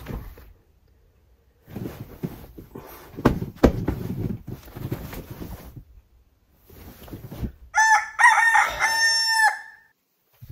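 Bedding rustling as someone tosses and turns in bed, then a rooster crowing once, lasting about a second and a half, near the end.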